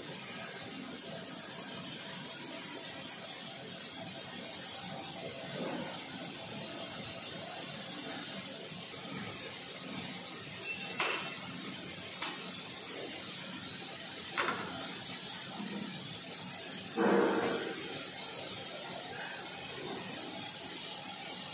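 B&D BD-55EPM screw air compressor running under test with a steady noise, with a few short clicks around the middle and a louder short knock near the end.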